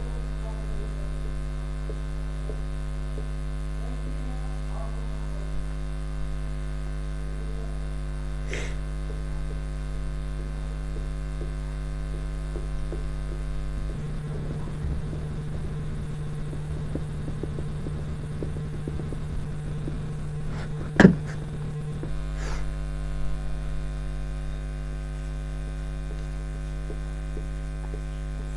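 Steady electrical mains hum with faint scattered ticks and a small click about a third of the way through. For about eight seconds in the latter half the hum turns rougher and noisier, and a single sharp click, the loudest sound, comes near the end of that stretch.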